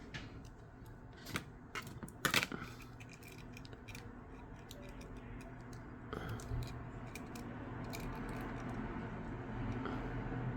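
Small sharp clicks and taps of hands and tools on a phone's parts as the power-button flex cable is fitted to the Samsung A12's board, the loudest about two seconds in. A low steady hum runs underneath and grows a little louder about six seconds in.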